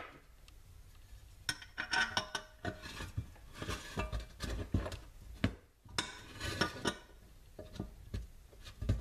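Irregular metal clinks and small knocks as a brass fuel valve fitting is handled and screwed into a Coleman stove's fuel tank, thickest from about a second and a half in until near the end.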